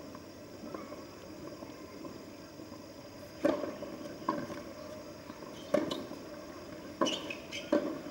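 A tennis serve and rally. The ball gives a few faint bounces before the serve, then about a third of the way in the serve is struck with a sharp crack, and racket hits and ball bounces on the hard court follow, roughly one every second or so.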